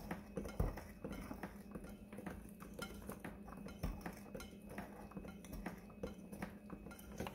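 Electric hand mixer running steadily, its metal beaters churning thick cake batter and clicking irregularly against the sides of a glass bowl as flour is beaten in.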